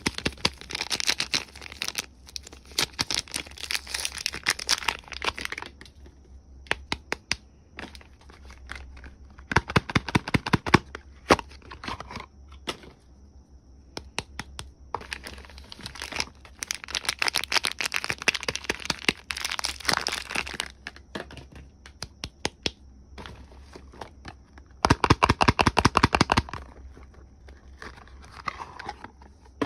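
Soap packaging being unwrapped by hand: wrappers crinkling and tearing in bursts of dense crackling a few seconds long, with short pauses between.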